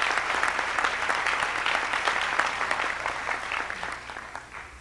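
Audience applauding, a dense spatter of many hands clapping that dies away near the end.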